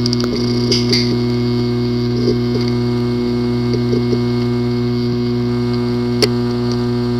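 Hard disk drive with a physically damaged disk assembly, running with a steady low buzzing hum and an occasional sharp click. The clearest click comes about six seconds in.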